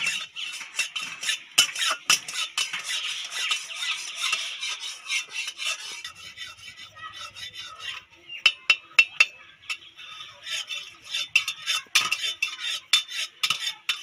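Raw potato being peeled by scraping it against a fixed upright blade (a boti): many quick, short scraping strokes as the skin is shaved off, with a short pause about halfway through.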